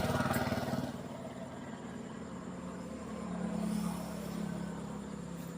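An engine running nearby with a steady low hum, louder in the first second and then quieter, swelling slightly about halfway through.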